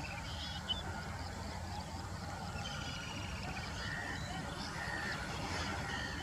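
Outdoor ambience of several birds calling: short trilled chirps and brief whistles come and go over a steady low background noise, with one short tick just under a second in.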